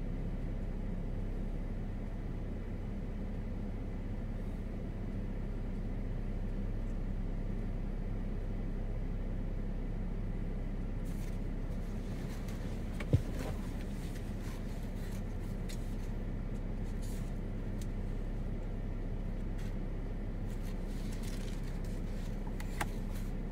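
Steady low outdoor background rumble that holds even, with no swelling roll of thunder. A single sharp click sounds about halfway through, and faint scattered ticks follow in the second half.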